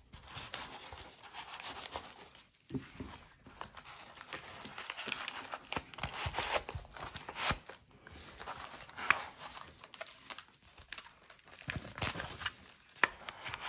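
Rifle magazines being pushed into a nylon chest-rig chassis by hand: fabric rustling and scraping, with a couple of sharp clicks, one about nine seconds in and one near the end.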